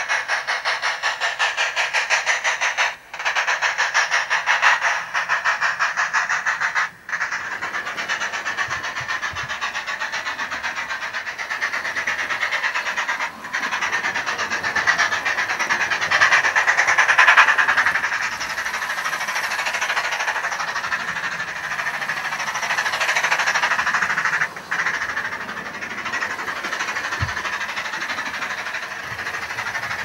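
Digital steam-locomotive sound unit in a model railway coach playing fast steam chuffs through its small onboard speaker, tinny, keeping time with the speed of the model train. The sound cuts out briefly several times: drop-outs of the sound unit.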